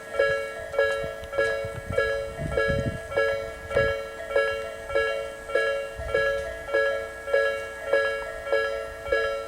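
Japanese railway level-crossing alarm of the slow-tempo Nikkō Line type: an electronic two-tone ding repeating evenly, a little under twice a second. A low rumble and clatter runs beneath it for the first four seconds or so.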